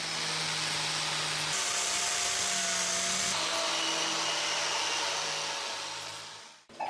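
Angle grinder with a red non-woven abrasive disc running against the steel of a rusty kukri blade, scouring off the rust: a steady motor whir under a grinding hiss. The tone shifts a couple of times, and it cuts off near the end.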